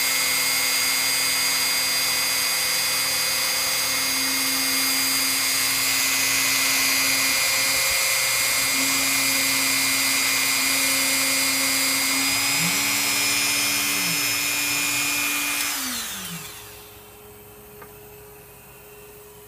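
A small electric motor, such as a power tool or household appliance, runs steadily with a high whine. About 16 seconds in it is switched off and winds down, its pitch falling as it fades.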